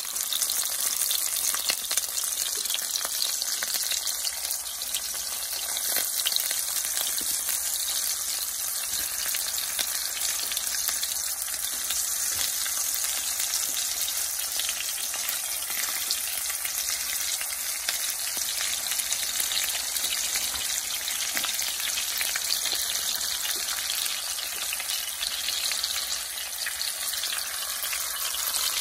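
Smoked sausages frying in hot oil in a skillet: a steady, dense crackling sizzle.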